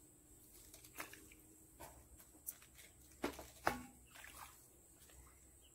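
Scattered small splashes and drips of shallow water as a small gill net is handled by hand to pick out caught fish, with the sharpest splash about two-thirds of the way through.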